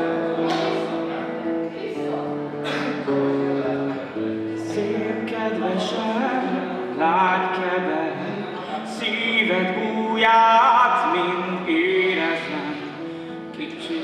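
Acoustic guitar playing chords while a man sings, his voice coming in about halfway through.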